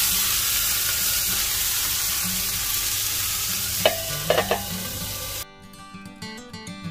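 Food sizzling steadily as it fries in a hot pan, with a few quick clicks of a utensil against the pan a little before four and a half seconds in. About five and a half seconds in, the sizzle cuts off abruptly and acoustic guitar music takes over.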